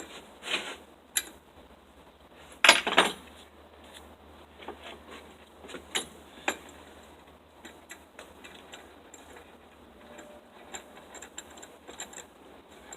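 Metal clinks and clatter from handling a rusty hand tool and a clamp on a work table: a few sharp clicks, one louder clatter about three seconds in, then scattered small ticks.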